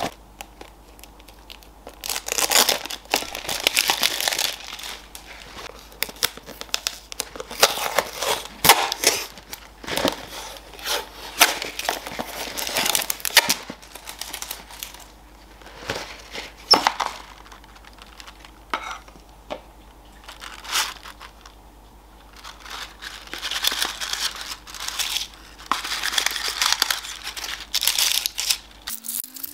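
Crinkling and rustling of Ferrero Rocher packaging: the clear plastic box being opened and the foil-wrapped chocolates handled, in irregular bursts with a few sharp clicks.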